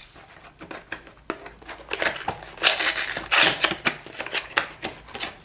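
Small cardboard box of firework fountains being opened by hand: card flaps and a paper insert rustling and scraping, with scattered clicks, busiest in the middle.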